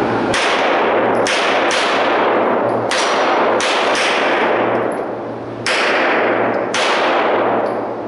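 Enhanced service pistol firing seven shots inside an indoor range, each crack ringing on with a long echo. The shots come in an uneven string, with a gap of about two seconds near the middle.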